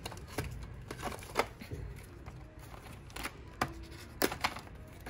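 Clear hard-plastic contact-lens display cases being handled and lifted out of a display rack: several short, sharp plastic clicks and knocks, the loudest about one and a half seconds in.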